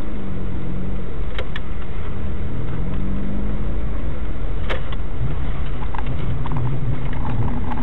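Car engine and road noise heard from inside the car's cabin, the engine note slowly rising and falling as the car drives on. A few sharp clicks come about a second and a half in and again near the middle.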